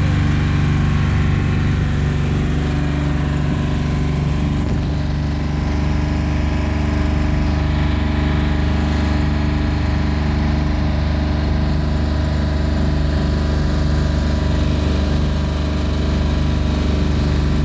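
Outrigger boat's engine running at a steady pitch while the boat is under way.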